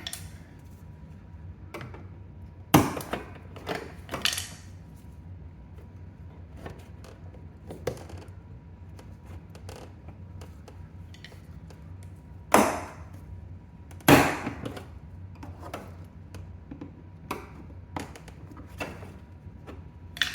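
Plastic trim clips of a 2015 Subaru WRX STI rear door panel popping loose under a trim tool, which is pretty loud, like it's breaking, but it's not. There are a few sharp snaps, three in the first five seconds and two more at about twelve and fourteen seconds, with lighter clicks and tapping between.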